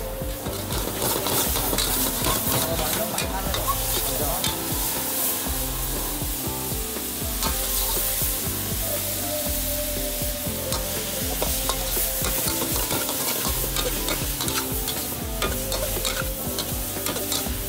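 Stir-frying in an aluminium wok: a long metal spatula repeatedly scrapes and knocks against the wok while the food sizzles steadily over high heat.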